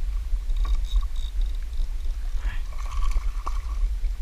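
Wind buffeting a small action-camera microphone, a steady low rumble, with a few faint short high-pitched tones and light clicks above it.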